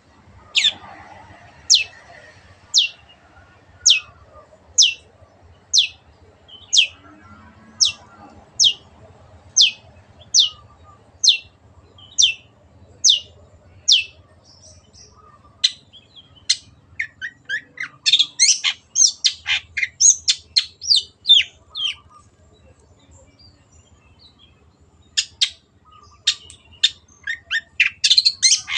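Long-tailed shrike singing: a steady series of short, sharp notes, each sweeping down in pitch, a little over one a second. About halfway through it breaks into a fast run of varied notes, pauses briefly, and starts a second fast run near the end.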